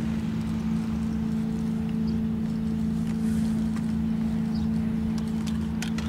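A steady, unchanging engine hum with a low rumble beneath it.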